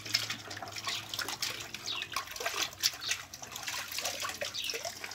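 Hands swishing and splashing a cloth handkerchief about in a plastic bucket of water, rinsing the soap out of it, in irregular sloshes and drips.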